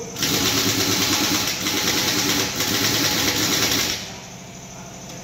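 Pneumatic impact wrench running hard at a bus's front wheel nuts for about four seconds, then cutting off, over a steady mechanical hum.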